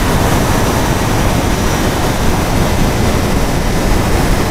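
Steady wind rush over a helmet-mounted camera microphone on a sport motorcycle riding at speed, with road noise underneath.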